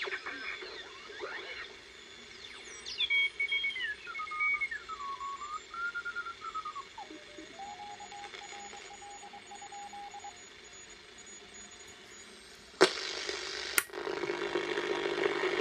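Vintage valve communications receiver being tuned: whistling tones glide down in pitch as the dial turns, settling into a steady, broken tone over background hiss. Near the end two sharp clicks as a switch knob is turned, then louder static.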